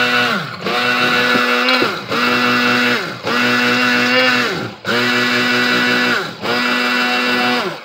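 Continental electric stick blender's motor whining in short pulses, about six runs of a second or so each, its pitch sagging as it briefly spins down between them, then stopping near the end. It is whipping heavy cream with chocolate milk powder in a stainless steel bowl, the cream not yet thick.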